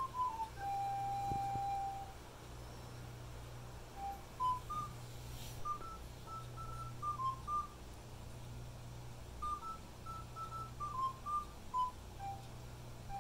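A person whistling a slow tune in clear single notes, with a long held note about a second in and short pauses between phrases, over a steady low hum.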